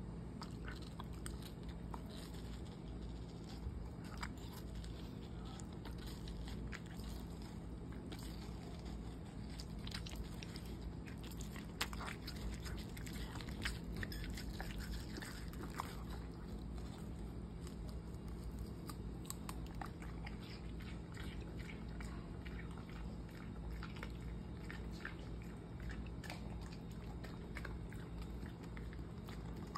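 A dog biting and chewing watermelon flesh from a slice, a scatter of irregular wet crunching clicks over a steady low hum.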